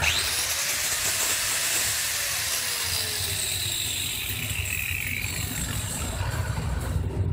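Handheld angle grinder fitted with a tile-cutting disc switched on: its motor spins up with a quickly rising whine, then runs unloaded with a steady hissing whir. The sound ends abruptly near the end.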